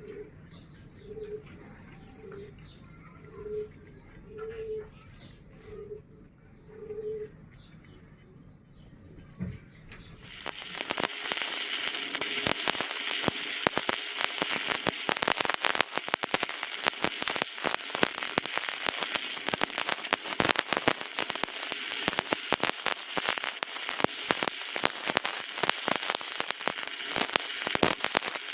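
A pigeon cooing in a short series of notes, then about ten seconds in a stick welding arc strikes and runs with a steady loud crackle and hiss.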